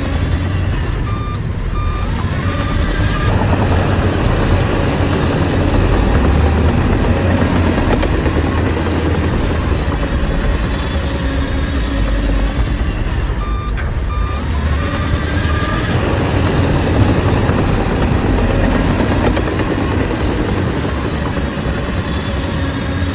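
A bulldozer's heavy diesel engine working steadily under load, with a reversing alarm beeping in short bursts a few times.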